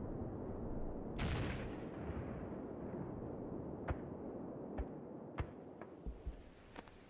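Low rumble of explosions dying away, a sharp crack about a second in, then scattered single gunshots, about seven cracks spread over the last few seconds, growing fainter.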